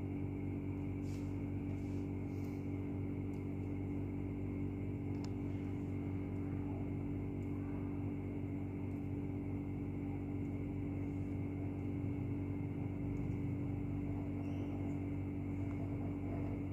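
A steady low hum made of several held tones at once, unchanging throughout, with a few faint light ticks that fit a stylus tip tapping a tablet screen.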